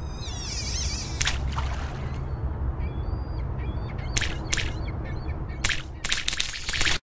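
Sound effects for an animated channel ident: a steady low drone under warbling, bird-like chirps, with several short sharp sounds in the second half.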